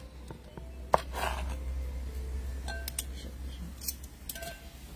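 Knife cutting cooked chicken thighs on a wooden cutting board: a sharp knock about a second in, then a few light clicks and short metallic clinks, over a steady low rumble.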